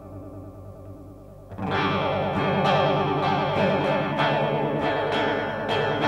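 Electric guitar played through a Stomptown Penny Royal chorus pedal, a copy of the Small Clone: a held chord fades with the chorus's wavering shimmer. About a second and a half in, louder, quickly picked chords come in.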